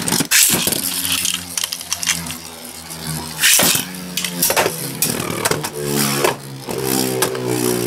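Two Beyblade spinning tops whirring on a plastic stadium floor, a steady hum that shifts in pitch, with sharp clacks as they strike each other and the stadium, the loudest about three and a half seconds in.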